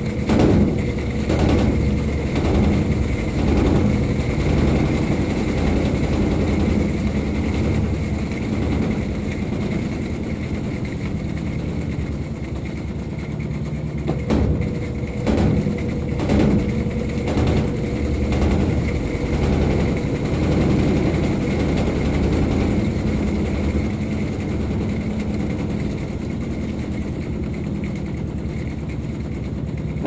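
Consul 16 kg top-load washing machine in its spin cycle with a heavy load of rugs: a steady motor and basket hum with held tones, broken by runs of quick knocks in the first few seconds and again around the middle.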